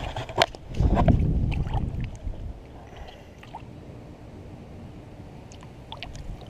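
Water splashing and sloshing as a peacock bass is lowered by hand into shallow water, loudest about a second in. After that come lighter sloshing and a few small ticks.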